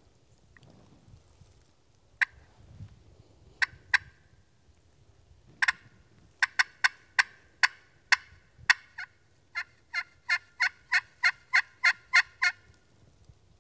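Hand-held turkey call imitating a hen's yelps: a few scattered yelps, then a steady run of about ten, roughly three a second, near the end. It is calling to draw a response from a gobbler.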